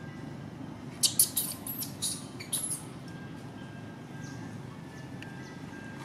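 A quick cluster of short high-pitched squeaks about a second in, lasting under two seconds, over a steady low background hum.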